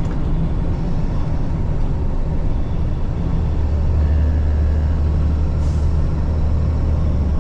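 Tow truck driving on the highway: a steady low engine and road drone that grows louder about halfway through, with a brief high hiss a little before the end.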